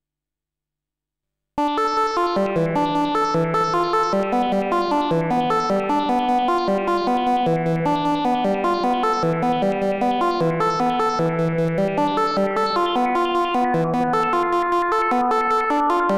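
Moog Matriarch analog synthesizer playing a fast sequenced run of notes, a steady stream of short pitched notes in a repeating melodic pattern that starts suddenly about a second and a half in.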